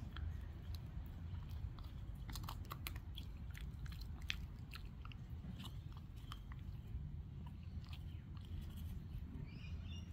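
Finnish Lapphund puppy chewing a stick, with irregular sharp cracks and crunches of wood between its teeth, thickest in the first half.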